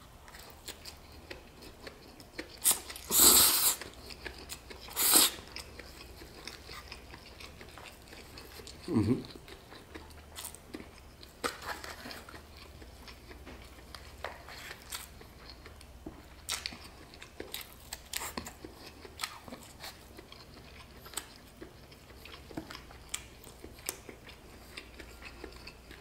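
Close-up eating sounds of chow mein noodles: two loud slurps a few seconds in, then wet chewing with many small clicks.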